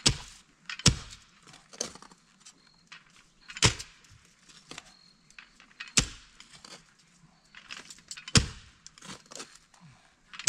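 Post hole digger jabbed into rocky ground, its blades striking stones: about six sharp impacts a second or two apart, with crunching and scraping of soil and rock between them.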